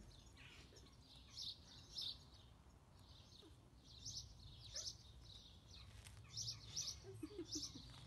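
Faint bird chirps: short high calls repeating at irregular intervals, over a faint low background hum.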